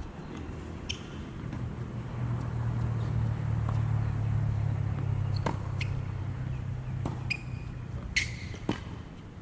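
Tennis balls being struck by rackets and bouncing on a hard court during a rally: several sharp knocks, most of them in the second half. Under them a low hum swells and fades through the middle.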